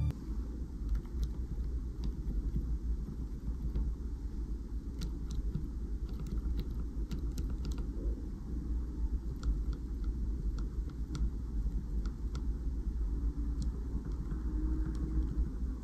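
KTT Red Wine linear mechanical keyboard switches, bare without keycaps in an acrylic switch tester, pressed and released repeatedly by a fingertip: irregular sharp clacks, a few a second, over a faint low rumble. First comes a stock switch, factory lubed but scratchy, then one lubed with Krytox 105 and 205g0 on a lubed 58g two-stage spring.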